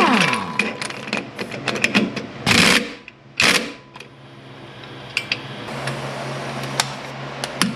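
Hand tools clicking and clinking against metal while a rusted lower control arm bolt is worked loose, with two short loud hissing bursts about two and a half and three and a half seconds in.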